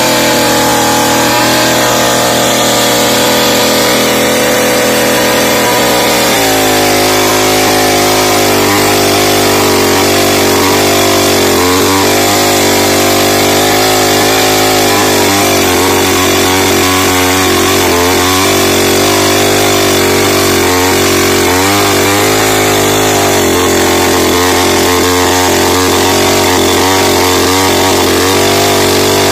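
Petrol chainsaw running continuously: steady in pitch for about six seconds, then its engine note shifts and wavers up and down as the chain cuts into a felled babul log.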